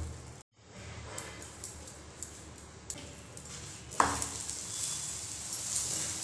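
A paratha frying on a hot iron tawa with a faint steady hiss. About four seconds in, a spoon clicks against it as ghee is spread over the paratha, and the sizzling grows louder.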